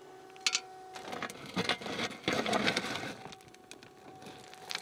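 Volvo ECR18 Electric mini excavator working: a steady hum from its electric drive and hydraulics, with the bucket digging into stony soil, scraping, crunching and clicking about halfway through.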